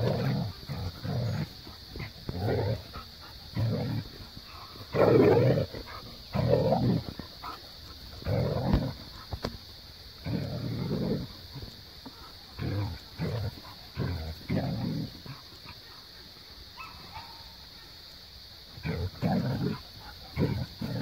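A Siberian husky and an Australian cattle dog play-fighting, with repeated growly 'talking' vocalizations about a second long each. The vocalizations come in a steady run, pause about three-quarters of the way through, then start again near the end.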